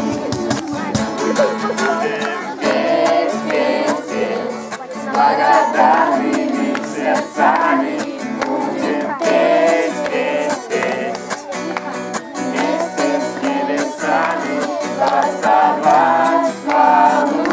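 Singing to a strummed string-instrument accompaniment.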